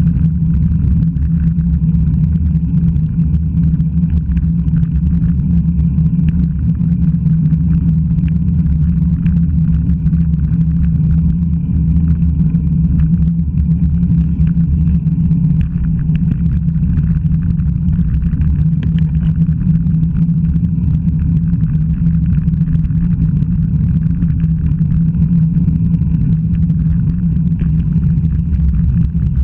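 Steady low rumble of wind buffeting and tyre-on-tarmac noise picked up by an action camera mounted on a moving bicycle.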